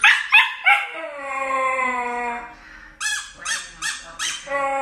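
A dog yips a few times, then gives a long howl that drifts slightly down in pitch. A few more yips follow, and a second long howl begins near the end.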